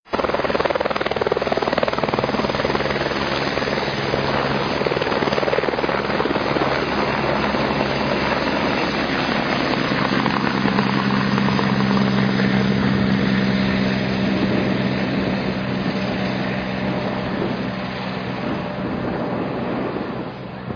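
Light helicopter's rotor and engine running steadily and loudly close by as it lifts off and flies away, growing a little fainter near the end.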